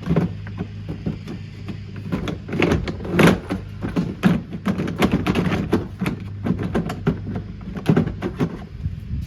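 A Kuppet portable washing machine's plastic housing being broken apart, with a dense, irregular run of knocks and clatters, the loudest about three seconds in and near the end. A steady low hum underneath.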